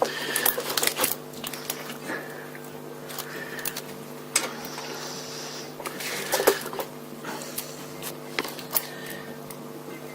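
Small clicks, taps and scrapes of hand tools and metal parts being handled while a banjo bolt on a motorcycle oil line is fitted and screwed in, over a steady background hum.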